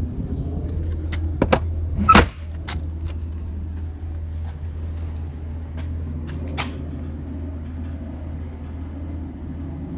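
The rear door of a truck's box body being unlatched and swung open, with a loud metal clunk about two seconds in, lighter clicks and knocks around it, and a couple more knocks later. A steady low engine hum runs underneath.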